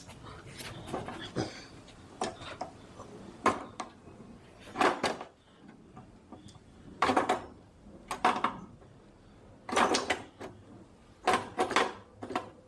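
Short bursts of metallic clicking and clattering, one cluster every second or so, from tools and parts being handled while a mower deck is being worked on.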